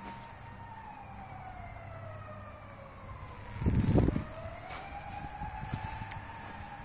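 Wailing emergency-vehicle siren, its tone falling slowly for about four seconds and then rising again. A short burst of low rumble comes just as the pitch turns.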